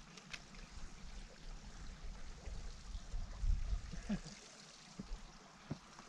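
Wind rumbling on the microphone over faint water noise as a striped bass is lifted out of a canal, with a few short knocks in the second half.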